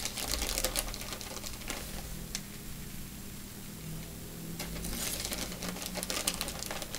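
Plastic bag of shredded cheese crinkling as it is handled and cheese is pulled out, a run of rapid crackles at the start and again from about five seconds in, quieter between.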